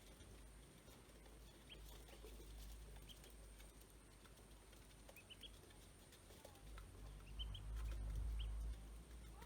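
Ducklings peeping: faint, short, high peeps scattered through, some in quick runs of two or three. A low rumble swells near the end.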